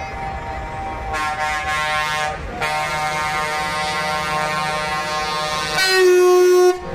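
Several truck air horns sounding at once in long, steady, overlapping blasts, with a louder air horn close by blasting for about a second near the end before cutting off sharply.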